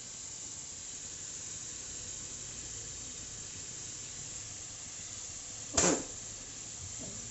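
Potato fries sizzling in hot oil, a steady hiss over a high flame. One short louder sound breaks in about six seconds in.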